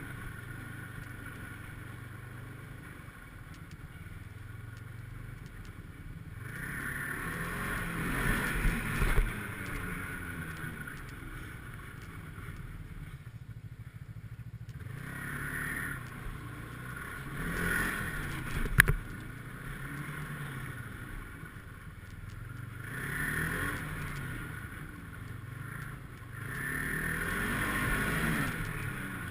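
Snowmobile engine running, its pitch rising and falling again and again as the throttle is opened and let off, with a sharp knock about two-thirds of the way through.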